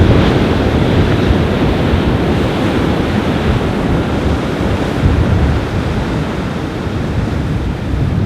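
Strong wind buffeting the microphone with a low rumble, over surf washing onto a beach.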